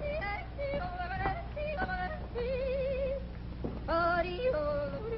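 A woman yodeling, her voice leaping between low and high notes, with a wavering held note about halfway through.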